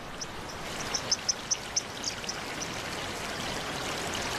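Mountain torrent rushing over rocks, a steady wash of water, with a quick run of short high-pitched ticks in the first couple of seconds.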